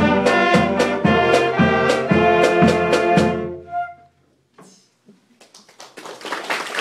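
Student band of trumpets, trombone, saxophones, flute, snare and bass drum playing the closing bars of a piece, with drum hits on the beat, ending on a held final note about three and a half seconds in. After a short pause, applause starts near the end.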